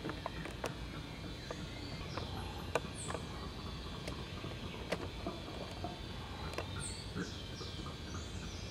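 Short bird chirps that slide down in pitch, repeated irregularly over a steady low rumble, with several sharp clicks.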